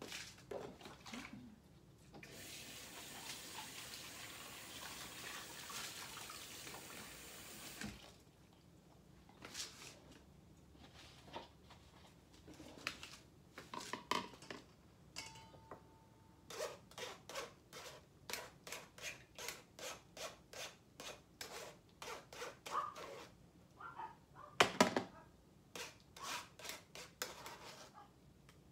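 A kitchen tap runs into the sink for about six seconds near the start. Then comes a long run of short scraping strokes, about two a second, as cucumber pulp is worked in a metal strainer over a stainless steel bowl, with one louder clank near the end.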